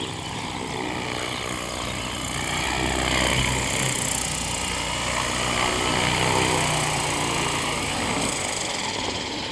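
Funcopter RC helicopter flying low, its motor and spinning rotors giving a steady whirring hum whose pitch shifts up and down as it manoeuvres.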